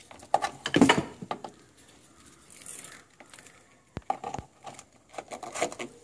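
Irregular clatter of hard objects being handled and knocked together: a flurry of clicks and knocks about a second in, then another run of them from about four seconds on.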